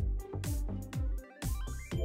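Background electronic music with a steady thumping beat, and a rising run of notes near the end.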